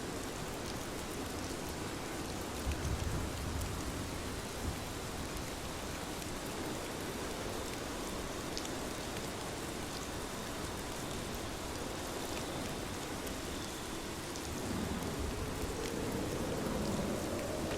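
Steady rain falling, a constant hiss with scattered drop ticks. A brief low rumble comes about three seconds in, and a louder low rumble swells in near the end.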